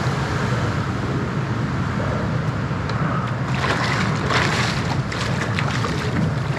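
A large hooked fish thrashing and splashing at the water's surface beside a small boat, starting about halfway through, over a steady rumble of wind and lapping water.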